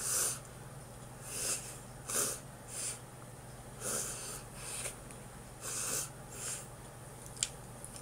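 A person taking short, noisy breaths through the mouth, about nine in an irregular series, with a single small click near the end. The breaths are a reaction to the burn of spicy sriracha cashews.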